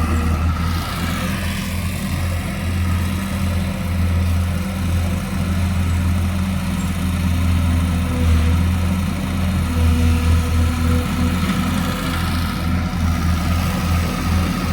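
Diesel engine of a Sumitomo LS260 hydraulic excavator running steadily as the machine works, a deep drone that wavers and flickers in level.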